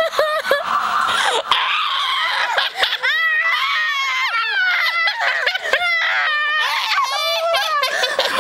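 Two women laughing hysterically, with high-pitched, shrieking bursts of laughter.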